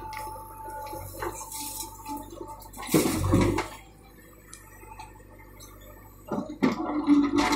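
JCB 3DX backhoe loader's diesel engine and hydraulics working as the backhoe dumps a bucket of soil and stones into a tractor trolley and swings back. About three seconds in there is a short loud burst of rumble, and the engine note picks up loudly again near the end.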